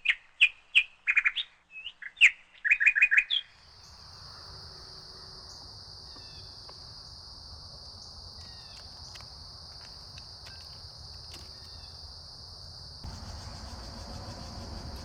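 A bird chirping: a quick run of loud, sharp chirps for about three and a half seconds. After that a steady high-pitched tone takes over, with a few faint chirps in it.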